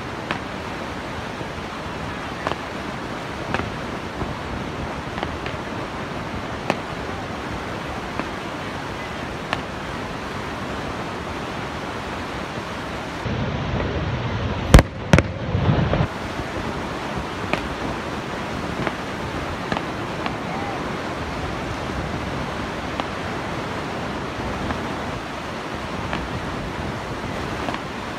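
Distant fireworks shells bursting: scattered sharp pops every second or two, with two loud bangs in quick succession about halfway through. Underneath is a steady rushing roar of the waterfall.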